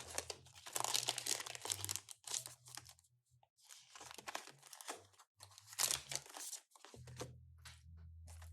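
Crinkling and rustling of plastic and paper as a planner pencil board is picked up and handled, in irregular spurts with brief pauses about three and five seconds in. Underneath, low bass guitar notes drone faintly from another part of the house.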